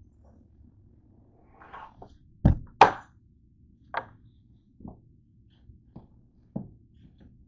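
A series of sharp knocks and thunks from the camera being handled and moved: the two loudest come close together about two and a half seconds in, then four lighter ones follow about a second apart.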